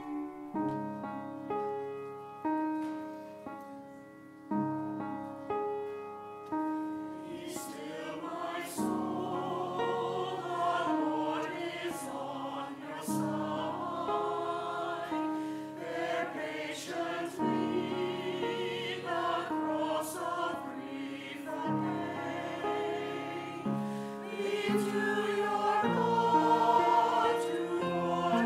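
A piano plays a slow introduction of separate, fading chords, then a mixed choir of men and women comes in about seven seconds in and sings a slow hymn-like song with the piano accompanying.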